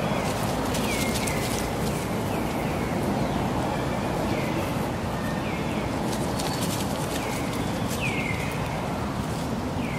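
Short, high chirping calls, each falling in pitch, repeated several times a second in runs with a lull around the middle, over a steady outdoor hiss.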